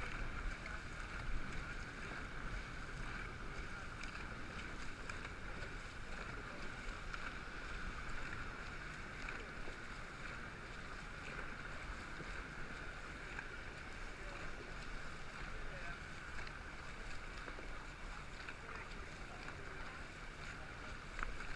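Steady wash of water and wind around a paddled boat on the water.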